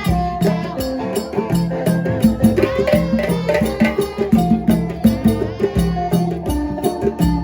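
Music with a steady drum and percussion rhythm.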